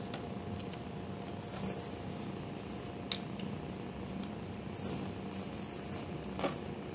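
Electronic chirping-bird cat toy sounding off in short runs of rapid, high-pitched chirps: one run about a second and a half in, and a longer one near five seconds.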